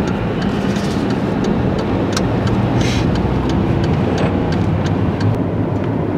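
Steady road noise inside a moving Mazda car's cabin: low rumble of engine and tyres, with scattered light ticks and a short hiss about three seconds in.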